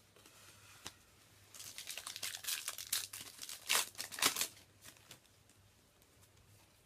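Foil Yu-Gi-Oh booster pack wrapper crinkling and being torn open: a run of crackles starting about a second and a half in, loudest near the end of the run, and stopping after about three seconds.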